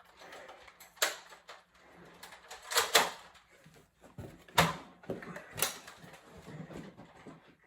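Four sharp plastic clacks spaced a second or two apart, typical of Nerf foam-dart blasters being primed and fired, with faint rustling of movement between them.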